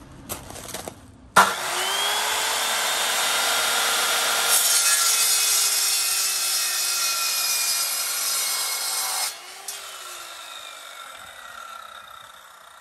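Guild chop saw with an aluminium-cutting blade starting suddenly about a second and a half in, its whine rising as it spins up. It then cuts through the metal tube of a carpet knee kicker for about eight seconds. When the trigger is released the blade spins down with a falling whine.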